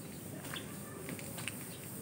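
Quiet outdoor background with a few faint short chirps or clicks, about half a second in and again near a second and a half. No engine is running.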